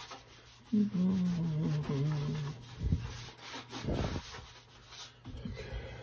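Damp cloth rag rubbing and wiping over the metal housing of an air handler's blower motor, with two dull knocks a few seconds in. A low, slightly falling droning tone lasts about two seconds near the start.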